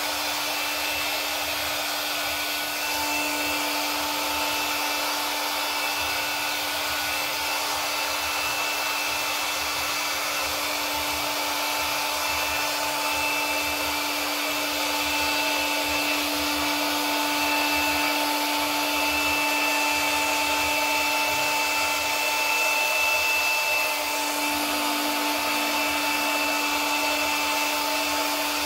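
Electric blower motor running steadily: a continuous rush of air with a constant motor whine.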